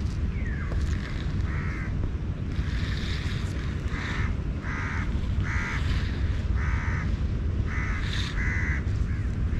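A bird calling over and over, about eight short calls of roughly half a second each, over a steady low rumble of wind on the microphone.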